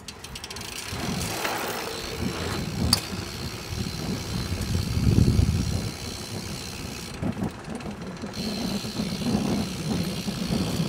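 BMX bike rolling over paving: tyre rumble on the ground with the rear hub's freewheel clicking, the rumble swelling about five seconds in.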